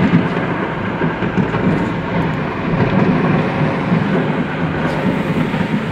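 Steady, loud rumble of a car's road and engine noise heard inside the cabin while driving along a highway.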